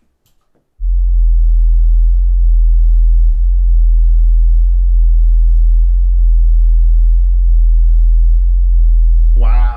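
Rythmik FVX15 15-inch ported servo subwoofer playing a very loud, deep, steady bass tone that starts about a second in, with a brief dip a little past three seconds. The bass is strong enough to shake the microphone on its stand.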